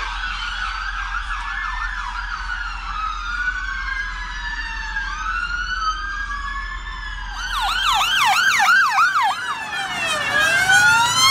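Several emergency-vehicle sirens sounding at once, their slow wails gliding up and down and crossing one another. A faster yelp joins about seven and a half seconds in, at roughly four cycles a second, and the sirens get louder from there.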